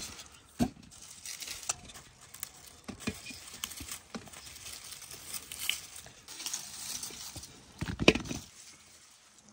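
Dry tomato foliage and stems rustling and snapping as tomatoes are picked by hand, with a few knocks of tomatoes dropping into an aluminium basin. The loudest knocks come in a quick cluster about eight seconds in.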